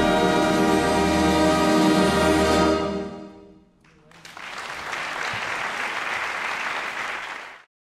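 Concert wind band holding its final chord, which dies away about three seconds in. After a short hush the audience applauds, and the sound cuts off suddenly near the end.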